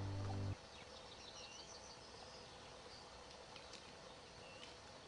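Music cuts off about half a second in, leaving faint open-country ambience: a steady insect hum with a few short bird chirps, fading out at the end.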